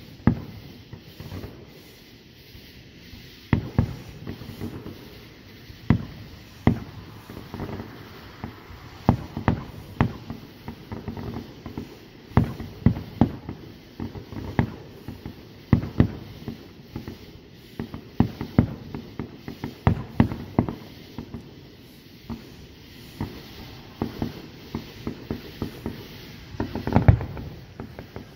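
Aerial firework shells bursting: a steady run of irregular booms and cracks, sometimes several in quick succession, with the loudest cluster near the end.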